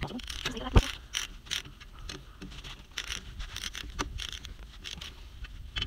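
A torque wrench being worked on a bolt: irregular ratchet clicks mixed with the scrape and rustle of gloves and clothing against metal, with a sharper click about one second in and another about four seconds in.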